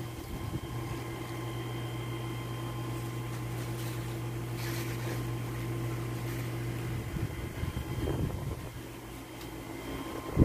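Steady machine hum: a low drone with several fixed higher tones, the low drone dropping away about seven seconds in.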